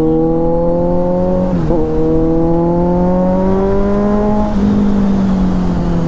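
Kawasaki Z900 inline-four running through a decat full-system Arrow exhaust with the catalytic converter cut out, loud under hard acceleration. The engine note climbs, dips briefly about two seconds in and again a little after four seconds as the rider shifts up, then starts to ease off near the end.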